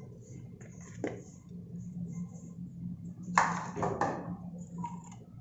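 Flour tipped from a plastic measuring cup into a stainless steel bowl, with a few light knocks of cup and hand against the steel, the loudest pair about three and a half seconds in. A low steady hum underneath.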